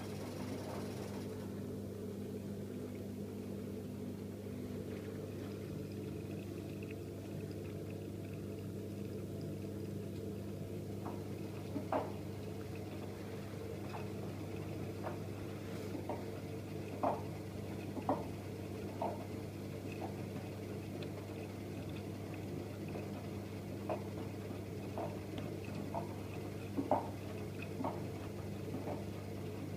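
AEG Öko-Lavamat 8650 washing machine running early in a 40 °C colour wash, with a steady low hum and water sloshing in the drum. From about eleven seconds in come short, irregular splashing knocks as the drum turns the wet laundry.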